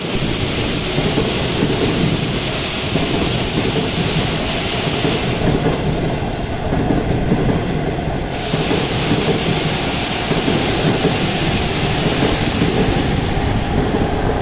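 A CR200J Fuxing push-pull passenger train, hauled by an FXD1J power car, passing close by. Its coaches' wheels make a loud, steady rumble on the track.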